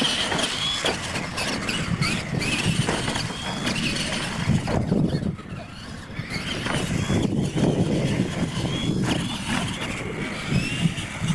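Radio-controlled monster trucks racing on dirt: their electric motors and gearing whine in short rising pitches again and again as the throttle is worked, over steady tyre and dirt noise.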